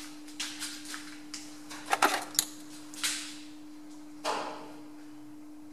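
A series of short metallic clinks and knocks of tools and parts being handled around a metal lathe, the loudest a quick cluster about two seconds in, over a steady low hum.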